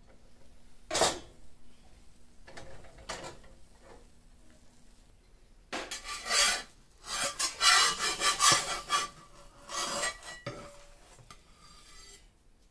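A metal pan lid is lifted off a frying pan with a short clink about a second in. Later a table knife scrapes and rubs against the pan and a ceramic plate in a run of uneven strokes, with some clatter, as an omelette is pushed out of the pan onto the plate.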